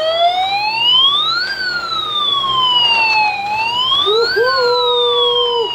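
Electronic siren from a toy fire truck's speaker, wailing slowly up and down in pitch and rising twice. A second, steady tone joins about four seconds in and stops near the end.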